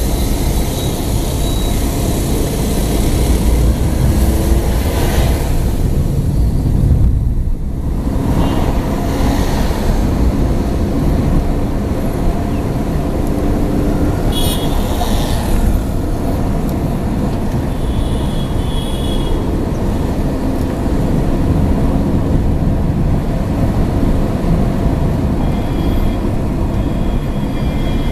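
Steady road and engine rumble of a moving car heard from inside the cabin, with tyre and traffic noise. Two short stretches of high steady tones come in the second half.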